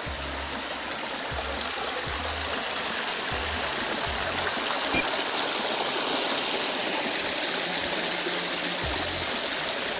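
Water of a shallow rocky stream rushing and splashing over rocks in a small cascade: a steady rush that grows a little louder over the first few seconds. A brief click comes about halfway.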